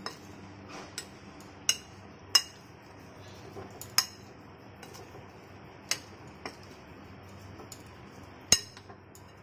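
Metal spoon clinking against a bowl while mixing spiced boiled chickpeas and fried potatoes: several sharp, irregularly spaced clinks with soft scraping between them.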